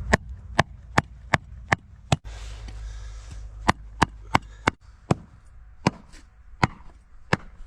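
A cleaver chopping through hard cured pork ribs: about fourteen sharp blows, six in quick succession, a short pause, then another run of about eight.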